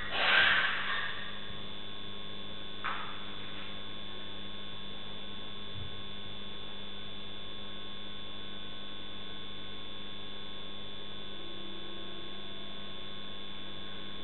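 A steady electrical hum with a thin high whine from a CCTV camera's audio, the fading end of an animal's cry in the first second, and a faint click about three seconds in.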